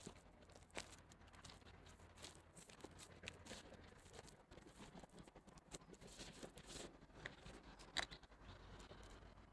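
Faint, irregular patter of raindrops in a forest, with scattered light taps and one sharper tap about eight seconds in.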